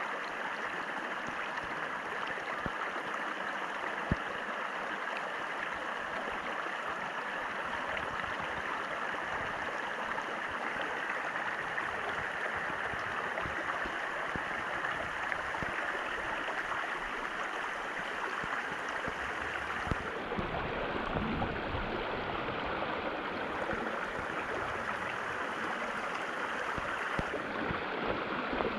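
A river flowing as a steady, even rush of water. There is a single sharp click about four seconds in, and a low rumble for a few seconds about two-thirds of the way through.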